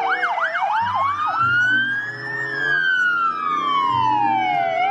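Police car sirens sounding together: a fast yelp at first, then slow wails rising and falling over a couple of seconds, with another wail starting to rise near the end.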